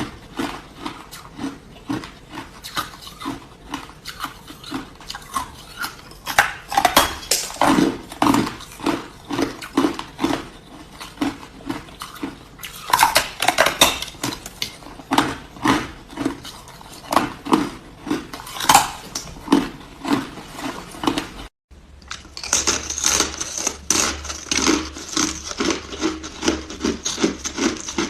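Hard ice being bitten and chewed close to the microphone: a steady run of loud crunches and crackles, several a second. The crunching breaks off for a moment about two-thirds of the way in and then carries on.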